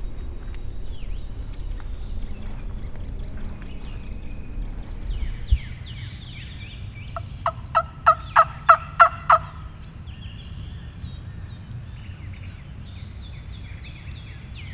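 A run of about eight turkey yelps, evenly spaced at roughly four a second, about halfway through. Small songbirds chirp faintly throughout, and there is one dull thump a little before the yelps.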